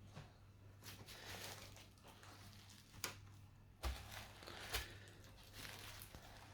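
Faint handling noise from work on a laptop: soft rustling with a few light, sharp clicks, three of them standing out around the middle.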